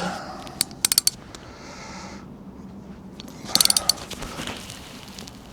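Hand socket ratchet clicking in two short bursts, about a second in and again past the middle, as it is swung back and forth on a tight exhaust bolt.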